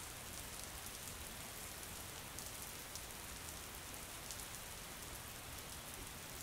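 Rain falling steadily: a soft, even hiss with a fine patter of many small drops.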